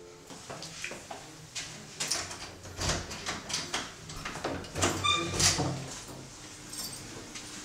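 Lock and handle of a metal apartment door being worked: a string of clicks, knocks and rattles, loudest about five seconds in.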